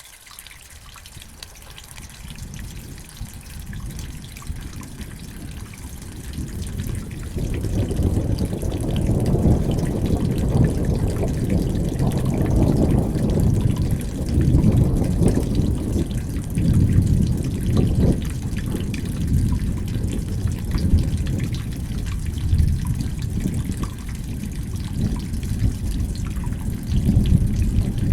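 Rain with running, dripping water, under a deep rumble that swells up over the first several seconds and then stays, rising and falling unevenly.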